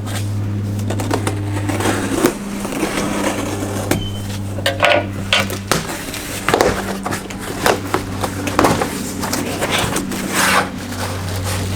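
Packaging and clothing being handled: irregular scrapes, rustles and knocks, over a steady low hum.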